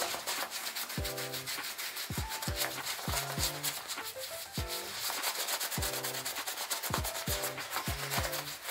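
Stiff brush scrubbing the leather of a baseball glove in quick repeated strokes. Background music with a beat plays underneath.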